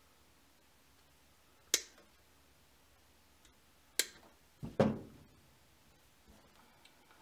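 Wire cutters snipping the thin wire tails of a handle, two sharp clicks about two seconds apart, followed by a duller, heavier knock as the cutters are set down on the cloth-covered table.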